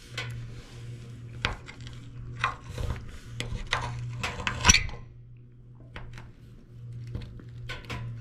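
Cutlery clinking and scraping against a plate or dish in short irregular clicks, busiest in the first half, over a steady low hum.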